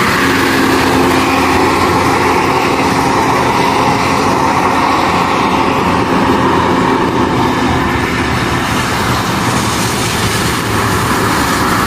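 Intercity coach bus passing close on a wet road: engine running with loud, steady road and tyre noise. A steady hum stops about two-thirds of the way through, and the road noise carries on.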